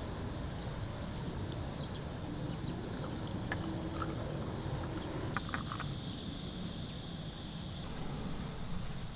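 Espresso poured from a small glass over ice cubes in a drinking glass, with a few sharp clinks and crackles from the ice. A steady low outdoor noise runs underneath, and a higher steady hiss sets in about halfway through.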